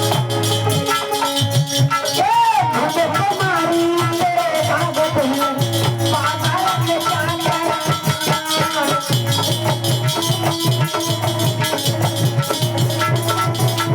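Alha folk music: a steady hand-drum beat with a rattling percussion layer under a wavering melodic line.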